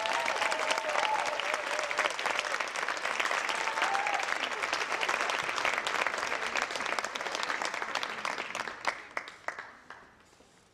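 Audience applauding after the music has stopped, with a high wavering voice calling out over the clapping in the first few seconds. The applause fades away near the end.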